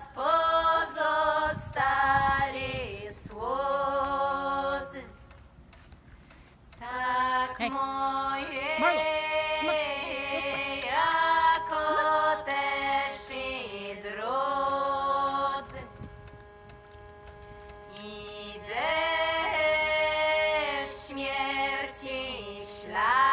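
Background music: a slow song of long held notes that slide up into pitch, with two brief quieter lulls.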